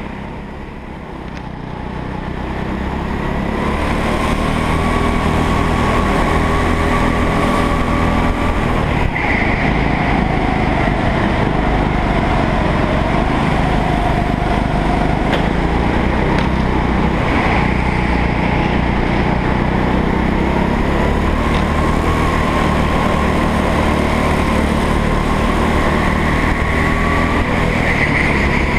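Rental kart's engine heard from the kart itself: it drops back about a second in, then picks up again and runs hard for the rest of the lap, its pitch rising and falling through the bends.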